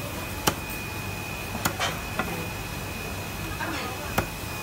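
Fish being chopped with a heavy cleaver on a wooden chopping block: four sharp, separate strikes spread over a few seconds. A faint steady high whine runs underneath.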